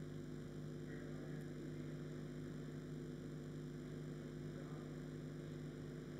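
Faint steady electrical hum, a low buzz with a few fixed overtones and nothing else.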